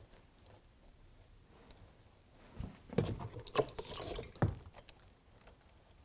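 A wet hand rubbing and patting damp Sculptamold, giving a short run of soft wet rubbing and slapping sounds about halfway through. The hand is smoothing the wet filler so its surface glazes over.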